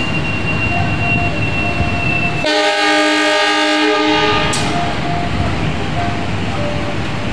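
Passenger train rolling along the rails with a steady low rumble and a thin high whine. About two and a half seconds in, a diesel locomotive's horn sounds one chord-like blast lasting about a second and a half.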